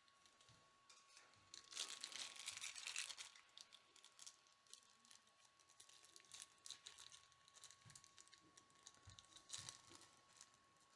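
Faint crinkling and rustling of plastic packaging being handled, strongest for a couple of seconds near the start, then scattered small clicks and rustles. A faint steady high-pitched tone sits underneath.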